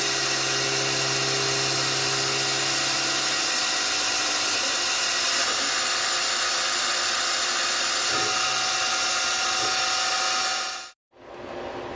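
Citizen L12 Swiss-type CNC lathe running, a steady loud hiss with several held whining tones. The sound cuts out abruptly near the end and comes back fainter.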